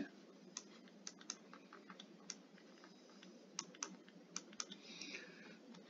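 Faint, irregular clicks and taps of a stylus on a tablet screen during handwriting, about a dozen scattered through the stretch.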